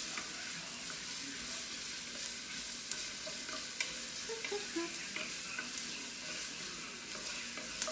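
Diced vegetables sautéing in an enamelled pot, a steady sizzle, while a wooden spoon stirs them, with a few light clicks of the spoon against the pot.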